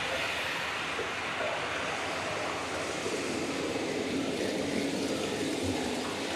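Dense, steady noise texture from an electroacoustic sound-art piece, spread from low rumble to high hiss with no clear tones or beat.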